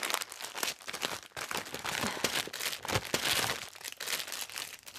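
Shiny gift-wrapping paper crinkling and rustling in a person's hands as a present is unwrapped, with dense irregular crackling.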